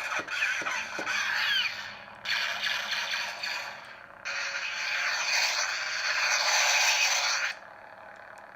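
Lightsaber sound effects from a Prizm 5.1 soundboard in a Mace Windu replica saber, heard through its small speaker over a faint steady hum: two short bursts with sweeping pitch in the first few seconds, then one long noisy effect lasting about three seconds that cuts off near the end.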